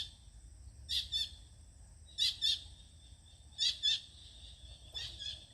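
A bird calling over and over: a short, high double note repeated about every second and a half, five times, over a steady faint high hum.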